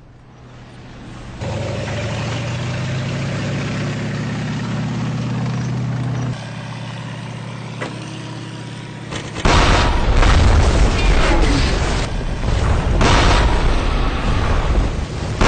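A steady low droning hum, then from about halfway a loud run of heavy explosions, several booms in quick succession over a continuous rumble.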